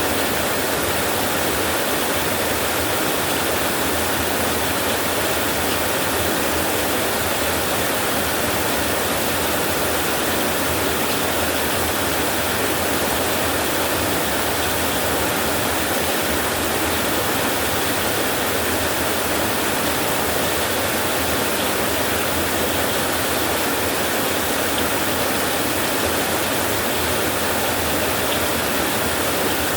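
Rain falling steadily on a tin roof, a dense, even hiss that neither swells nor breaks, with no thunder.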